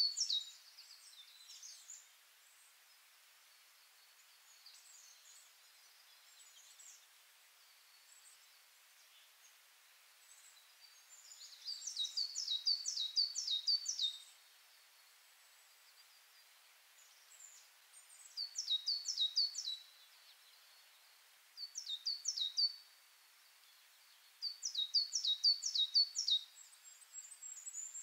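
A small songbird singing phrases of quick, high, downward-slurred notes, each phrase a second or two long. The phrases come about five times with quiet gaps between, over a faint steady hiss.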